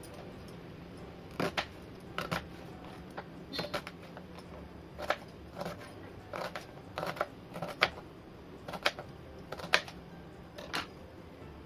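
Kitchen knife chopping an onion on a plastic cutting board: about twenty sharp, irregular knocks of the blade striking the board, starting about a second and a half in and stopping about a second before the end.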